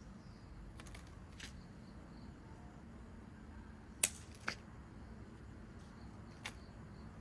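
About five short, sharp clicks or snips of hand tools being worked, the loudest about four seconds in, over a faint low hum.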